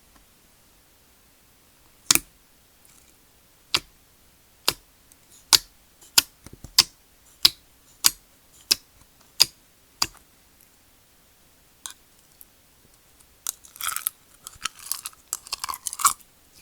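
Slime being pressed and worked by hand, giving a series of sharp pops about once every half second to a second. Near the end comes a quicker run of crackly squishing.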